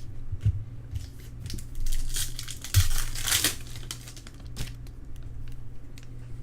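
A trading card pack's wrapper crinkling and tearing open as it is handled, loudest from about two to three and a half seconds in, with scattered light clicks and taps from cards and packs being handled.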